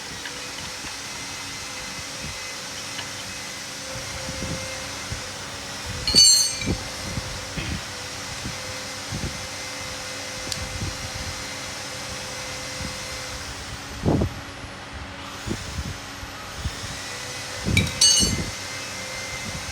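Hand tools clinking and knocking on metal engine parts during an engine teardown, with two bright ringing metal clinks about six seconds in and near the end and a dull thud in between, over a steady fan hum.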